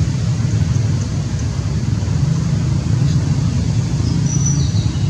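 Steady low rumble of road traffic, with engine noise running continuously and without a break.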